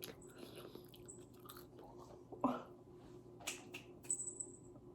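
Close-up chewing and mouth sounds of someone eating fast food, with small wet clicks and crunches. There is one brief rising sound about halfway through.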